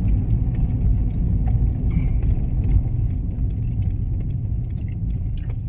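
Steady low rumble of a car's road and engine noise, heard from inside the cabin while driving, with small faint clicks and rattles over it.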